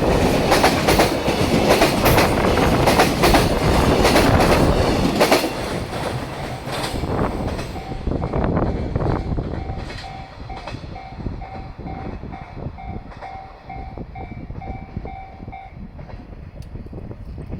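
Container wagons of a freight train running over rail joints: loud, rapid clacking of the wheels at the joints until about five seconds in, then fainter clicks as the train draws away. Once the train noise drops, a level-crossing alarm is heard ringing at about two tones a second, and it cuts off shortly before the end.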